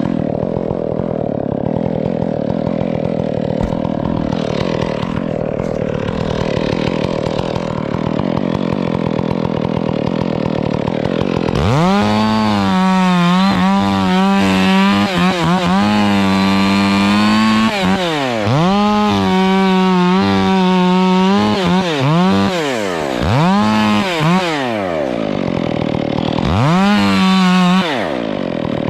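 Stihl chainsaw running at low throttle, then, a little before halfway, revved up to full speed with a high steady whine. Its pitch falls and climbs again several times as the throttle is let off and squeezed, typical of working cuts into a palm trunk.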